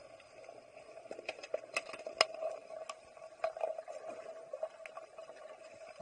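Underwater hockey sticks and the puck clacking against each other and the tiled pool floor, heard underwater as irregular sharp clicks over a steady hum.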